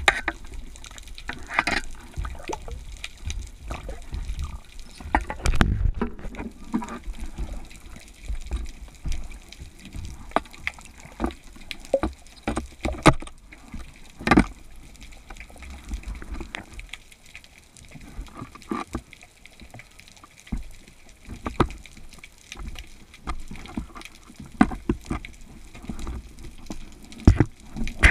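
Underwater water noise picked up by a submerged camera: sloshing and bubbling with irregular sharp clicks and knocks as a speargun and its line are handled.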